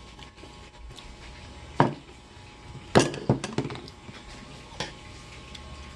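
A few sharp knocks and clinks of a metal spoon against a ceramic bowl as they are handled and set down: one about two seconds in, a quick cluster around three seconds, and a lighter one near the end.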